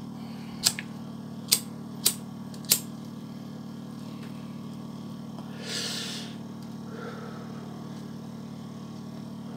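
A smoker's breathy exhale, a short hiss about six seconds in with a fainter one a second later, after four sharp clicks in the first three seconds, over a steady low hum.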